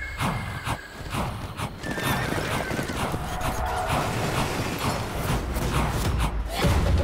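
Epic film-teaser soundtrack: a dense mix of sound effects with heavy percussive hits and short cries.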